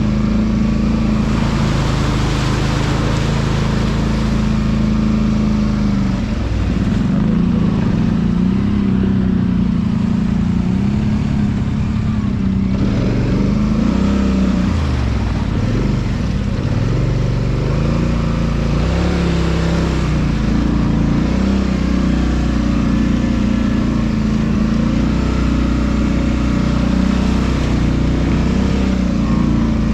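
ATV engine running while being ridden, its pitch rising and falling with the throttle, with a swooping dip and recovery about halfway through.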